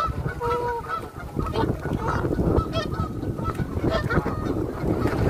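Canada geese honking repeatedly in a flock, mixed with the shorter, higher calls of gulls.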